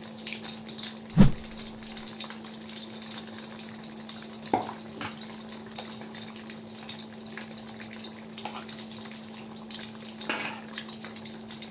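Mini martabak deep-frying in hot oil in a wok: a steady bubbling sizzle with small crackles. A loud knock comes about a second in, with fainter knocks near four and a half and ten seconds, over a steady low hum.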